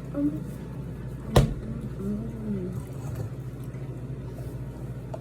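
A person chewing a mouthful of chicken burger, with a couple of soft closed-mouth 'mm' sounds and one sharp knock about a second and a half in, over a steady low hum.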